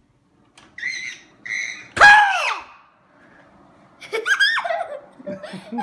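Short high-pitched squeals, then a loud scream about two seconds in whose pitch arches up and down, followed by more shrieking.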